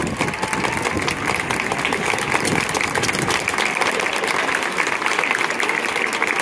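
A large stadium crowd applauding, with dense, steady clapping from thousands of supporters.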